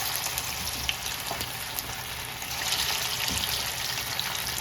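Chicken kabab pieces deep-frying in hot oil: a steady sizzle with small crackles, growing a little stronger about halfway through.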